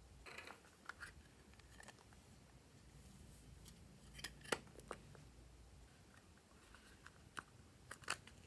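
Small plastic cases being handled and opened: a scatter of sharp clicks and taps, a few near the start, the loudest about halfway, and more near the end.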